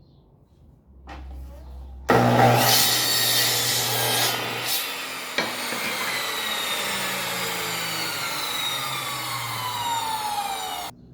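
Power saw cutting through wood. It starts abruptly about two seconds in, with a whine that slides slowly down in pitch while it runs, and cuts off abruptly near the end.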